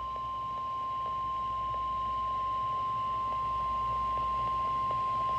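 NOAA Weather Radio's 1050 Hz warning alarm tone: one steady, unbroken high tone, growing slightly louder over its length. It signals that a warning message, here a special marine warning, is about to be read.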